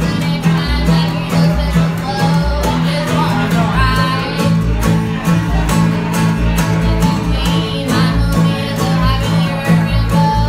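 A live bluegrass string band playing: strummed acoustic guitar, fiddle and mandolin over an upright bass plucking a steady beat, with a woman singing.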